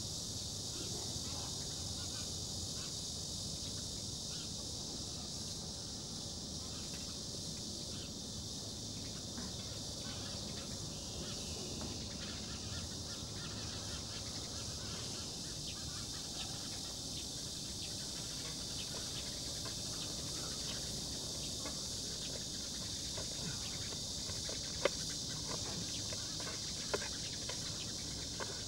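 Rural outdoor ambience: a steady high drone of insects, with a few sharp snaps near the end as people walk through brush.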